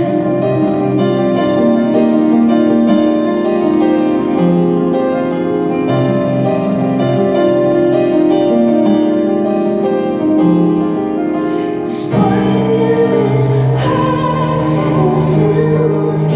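Live song: a woman singing over piano and keyboards, with sustained chords. The accompaniment grows fuller and brighter about twelve seconds in.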